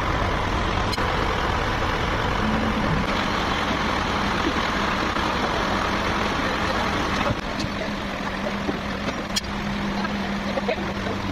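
Sawmill machinery running: a steady engine hum with a harsher noise over it that eases off about seven seconds in, and a few sharp knocks.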